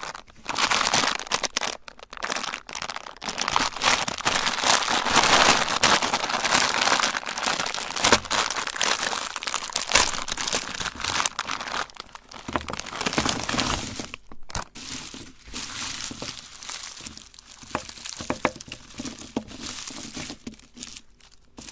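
Candy crinkling and crunching: a dense run of sharp cracks and crackles, busiest in the first two thirds and thinning out after a brief gap.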